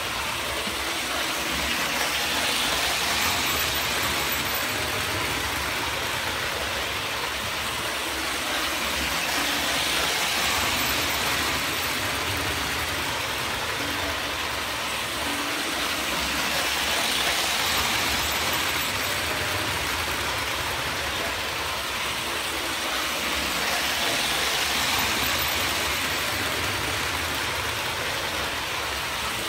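American Flyer Santa Fe A-B-A diesel toy train with two worm-drive motors running around the layout: a steady whir of the motors and rattle of wheels on the track, swelling and fading about every seven seconds as the train circles past.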